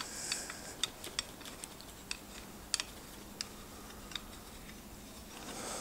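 Light, irregular clicks and taps of small steel parts being handled and fitted together by hand: a bolt, a nut and the hinge of a belt grinder's tracking arm.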